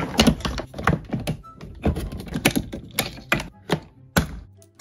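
Hard plastic toy-kitchen parts being handled and snapped together: a rapid, irregular run of plastic clicks and knocks.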